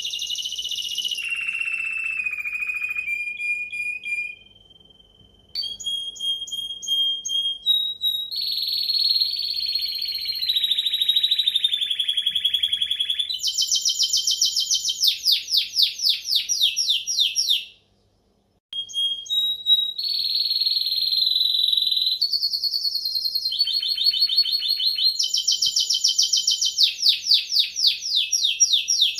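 Timbrado canary singing a long, high-pitched song of held and gliding notes alternating with rapid rolls, with a short lull about four seconds in and a brief break about eighteen seconds in.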